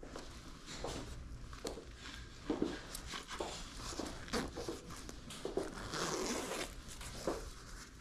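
Zipper on a vintage NFL nylon jacket being worked in short, irregular pulls, with the fabric rustling as it is handled.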